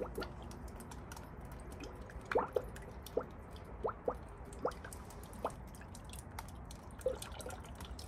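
Coolant being poured from a jug into a spill-free funnel on the radiator filler neck, glugging and plopping, with a handful of short rising plops in the middle, while the cooling system is refilled for bleeding.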